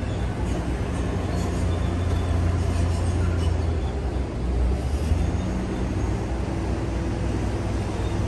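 Caterpillar D9T bulldozer's diesel engine running with a heavy, low rumble that swells a little between about two and five seconds in, with faint scattered clicks on top.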